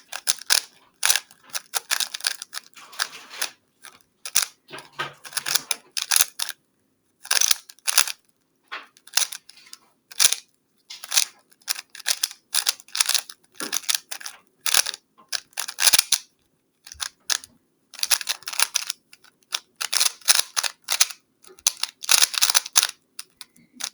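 3x3 Rubik's Cube being turned fast during a solve: the plastic layers clicking and clacking in rapid bursts of turns, broken by short pauses.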